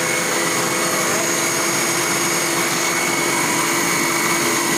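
The Baker 6.5-litre stand mixer's electric motor running steadily and loudly, a whirring hum with a constant high-pitched whine over it.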